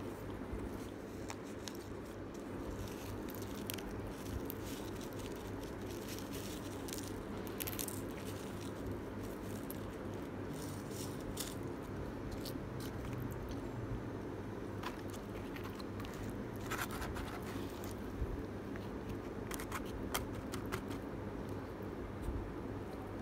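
Small paper seasoning sachets crinkling as they are torn open and shaken to sprinkle chili flakes, heard as scattered rustles and clicks over a steady low hum.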